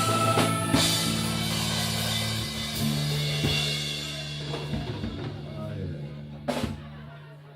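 Live rock band finishing a song: drum hits and fills over held low notes, one last strong drum hit about six and a half seconds in, then the music dies away.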